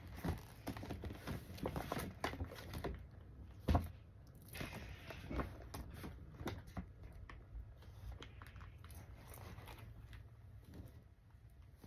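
Packaging being handled: faint crinkling and rustling with small taps and clicks, and one louder knock about four seconds in.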